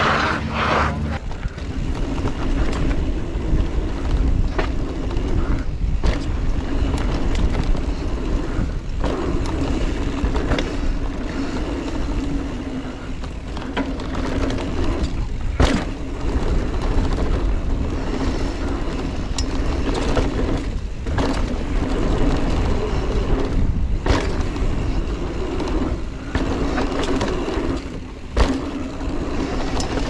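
Giant Trance 3 mountain bike descending a dirt trail, heard from a GoPro on the bike: a steady rush of wind on the microphone mixed with tyre noise on dirt and the bike rattling over bumps. Sharp knocks from hits on the trail come every few seconds.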